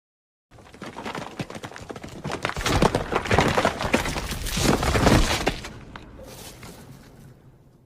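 Destruction sound effect: a dense crash of many breaking, crackling impacts over a deep rumble that builds to its heaviest in the middle, then thins to trickling crackles and fades out near the end.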